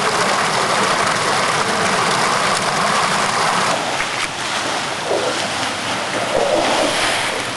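Water released to flush the village streets, gushing from a street outlet and rushing over the wet paving in a loud, steady rush. It eases a little about four seconds in.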